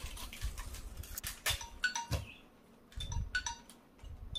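Foil potato chip packets crinkling in the hands, and chips crunching as they are eaten: a run of sharp, irregular crackles.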